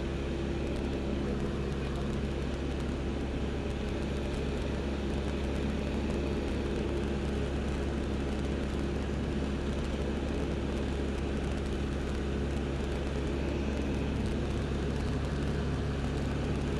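L-13 Vivat motor glider's piston engine and propeller running steadily in cruise flight, heard from inside the cockpit under the canopy.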